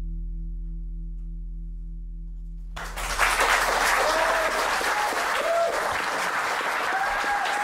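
The song's final low chord rings out and fades. About three seconds in, applause breaks out suddenly and keeps going.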